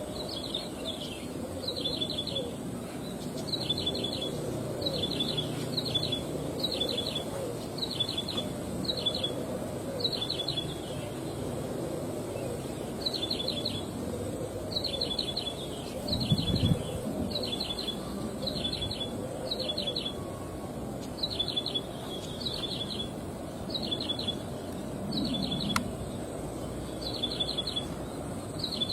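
Ciblek sawah (a field prinia) singing: a short, high phrase of three or four quick notes, repeated over and over at a steady pace, over a low outdoor background rumble.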